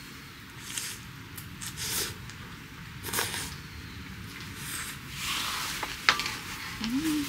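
Instant ramen noodles slurped several times, in short noisy pulls a second or so apart. A sharp click of chopsticks against the steel cup comes about six seconds in.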